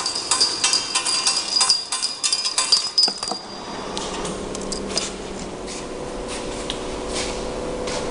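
Automatic vial-labeling machine running, small glass vials clinking rapidly against each other and the conveyor over a steady high whine. About three seconds in this stops, giving way to a quieter steady hum with a few scattered light clinks of glass vials.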